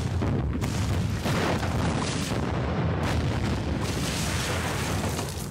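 A series of large explosions, one blast after another running together into a continuous deep rumble: a wooden arms depot blowing up.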